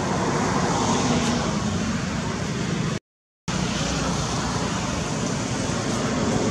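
Steady rushing background noise with no distinct animal calls, cut off completely for about half a second around three seconds in.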